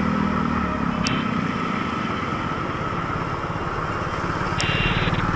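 Steady riding noise on a wet road: tyres hissing through rainwater and wind on the microphone, with a motorcycle's engine running close alongside. The rider's own Revolt RV400 is electric and adds little.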